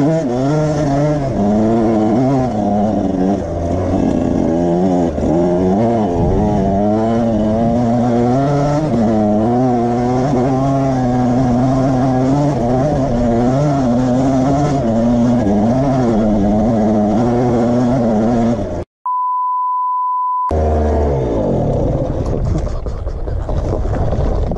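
Dirt bike engine revving up and down continually as it is ridden over a rough trail. About nineteen seconds in, the sound cuts out for a steady beep tone lasting about a second and a half, then the engine and trail noise return.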